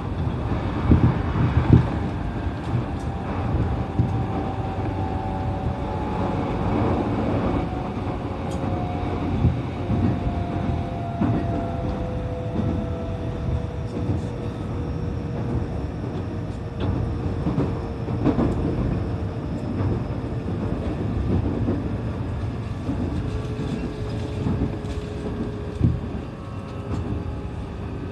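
E531 series electric train heard from inside a passenger car while running: a steady rumble of wheels on rail, with the traction motors' whine falling slowly in pitch.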